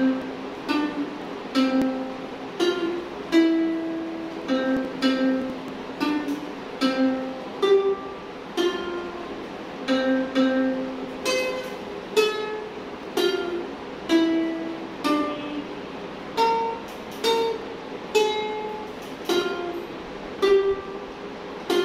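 Ukulele playing a slow melody of single plucked notes, about one or two a second, each ringing briefly before the next.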